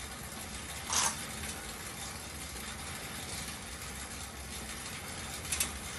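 Air exercise bike being pedaled: its fan wheel spinning with a steady whoosh and low hum, with two brief sharp clicks, one about a second in and one near the end.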